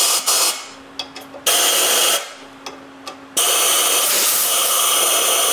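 Long-nosed compressed-air blow gun blasting air through the top holes into the water jacket of a homemade water-cooled Briggs & Stratton engine block, clearing out the cooling chamber. Three bursts of hiss: a short one at the start, another about a second and a half in, then a long blast from about three and a half seconds in.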